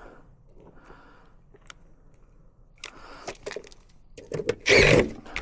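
Handling noise: faint scattered clicks and rustling, with a loud rustling burst near the end.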